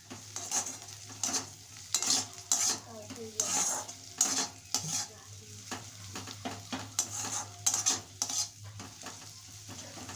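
Spatula scraping and stirring browned onions frying in oil in a karai, with a light sizzle. The scrapes come in repeated, irregular strokes over a steady low hum.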